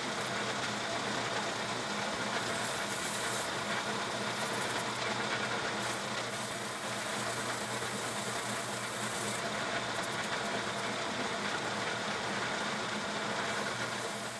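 South Bend metal lathe running steadily while a high-speed steel tool cuts grooves in a spinning 6061 aluminum part, with a high hiss of the cut that comes and goes.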